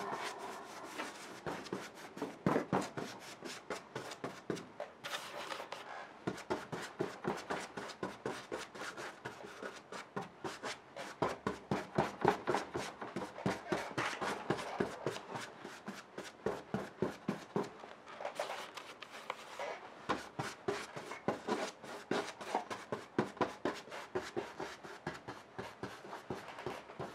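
Paintbrush scrubbing acrylic glaze onto a canvas in quick, repeated scratchy strokes, several a second.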